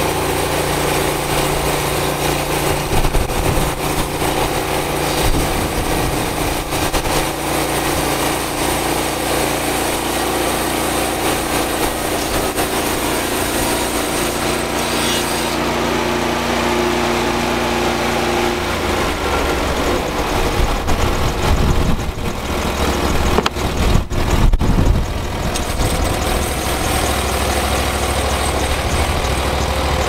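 Gasoline engine of a Hud-son Slabber portable bandsaw mill running steadily under load as its band blade cuts through a dense red oak log. About two-thirds of the way through the sound changes to a deeper, rougher note, with a few sharp knocks.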